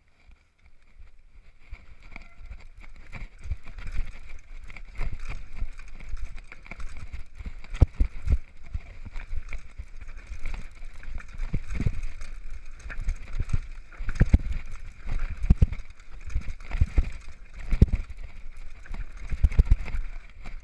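Downhill mountain bike ridden fast down a rough dirt trail: tyres rumbling over the ground with many irregular hard knocks as the bike hits bumps and roots, and a steady high buzz running underneath.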